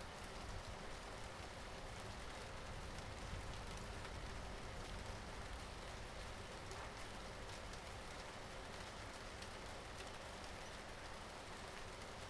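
Steady rain falling, with individual drops ticking through the hiss and a low rumble underneath.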